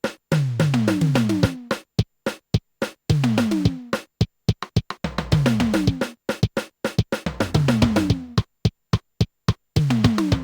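Yamaha PSS-780 keyboard's built-in drum sounds playing a sequenced percussion pattern: sharp hits and runs of tom-like notes, each note dropping in pitch and each run stepping down, repeating about every two seconds. A deep bass drum joins about halfway through.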